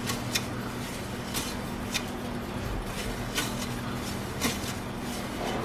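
Electric deli meat slicer running with a steady hum while slicing porchetta, with about five sharp clicks or crackles spaced a second or so apart as the meat passes through the blade.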